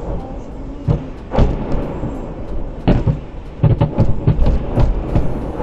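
Weapons fire in combat: a string of irregular loud bangs over a rumbling background, several coming in quick succession in the second half.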